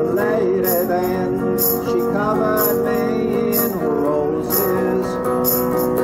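A hollow-body archtop electric guitar playing a country-style instrumental passage with bent, sliding notes. A jingling tambourine-like beat keeps time about once a second.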